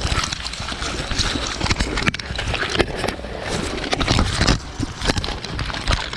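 Irregular footsteps and rustling of gear as a player moves, with scattered knocks and a low rumble from the microphone being jostled.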